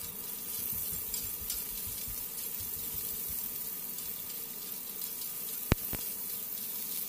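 Steaks searing in a hot pan of butter and bacon fat, sizzling steadily. Near the end come two sharp clicks about a quarter second apart, the first one loud.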